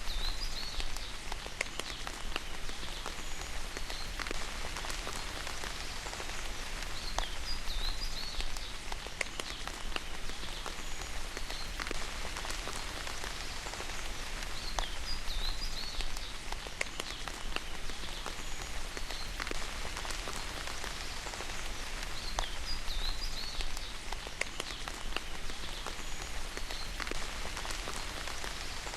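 Steady rain falling, with many separate drop hits close by. A small bird chirps in short, quick phrases that come back about every seven to eight seconds.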